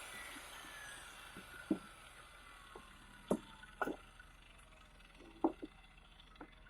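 Dnipro-M MShK-2300P large angle grinder coasting down after switch-off, its fading whine falling steadily in pitch. Several sharp knocks are scattered through it, and these are the loudest sounds.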